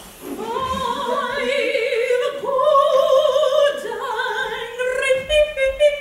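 A woman singing in an operatic style, holding several long notes with a wide vibrato.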